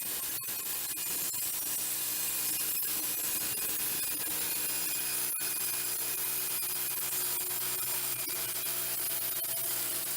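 Wood-Mizer portable band sawmill running steadily, its band blade sawing through a black walnut log.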